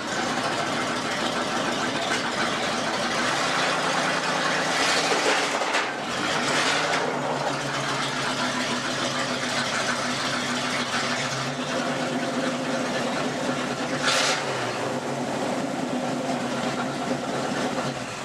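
3/4-ton Chevy truck's engine running steadily, with a few brief louder rushes of noise.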